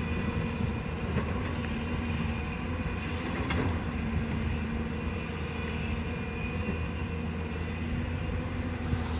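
Hydraulic excavator's diesel engine running steadily, with a few faint knocks over it.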